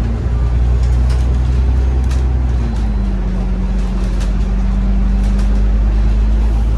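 Cummins diesel engine of an Alexander Dennis Enviro 500 MMC double-decker bus running under way, heard from inside the bus. The engine note steps down in pitch about three seconds in, with a few faint rattles over the steady drone.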